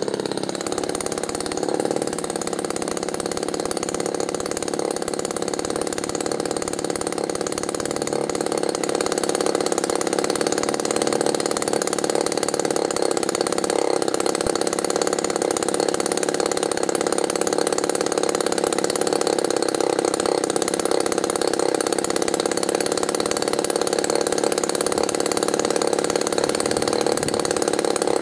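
NGH GT-17B 17 cc two-stroke petrol model-aircraft engine idling on its first run, steady, a little louder from about nine seconds in.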